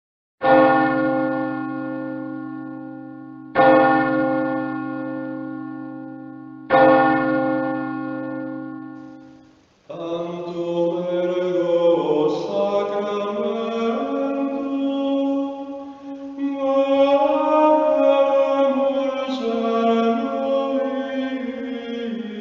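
A church bell struck three times, about three seconds apart, each stroke ringing on and fading. About ten seconds in, chanted singing takes over.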